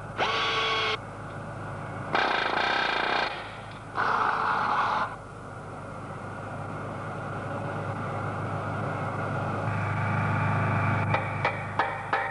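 A drill runs in three short bursts of about a second each, boring holes into a metal casting through a marking jig. Then a steady hum builds, and near the end a run of quick, regular taps starts, about three a second.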